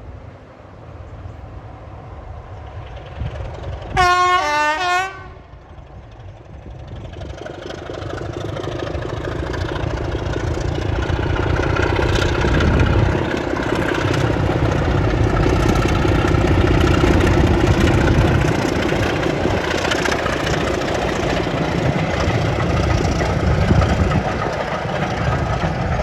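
A British diesel locomotive sounds its horn once, about a second long, about four seconds in; then its engine and wheel noise builds as it approaches, staying loud and steady through the rest.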